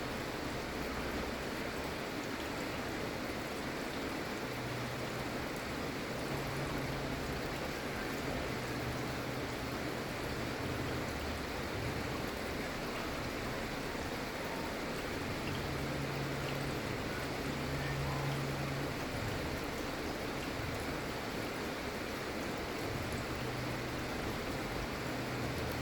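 Gentle, steady rain falling, an even hiss with no breaks. A faint low hum comes and goes beneath it.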